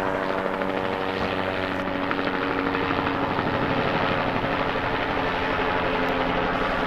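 Helicopter flying overhead, its rotor and engine giving a steady sound.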